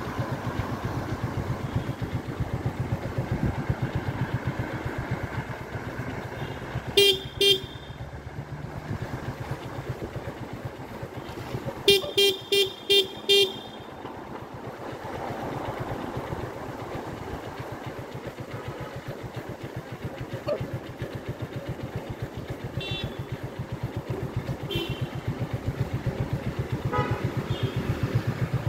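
Motorcycle engine running steadily as it rides, with horn beeps: two short beeps about a quarter of the way in, then four quick ones shortly after, and a few fainter beeps near the end.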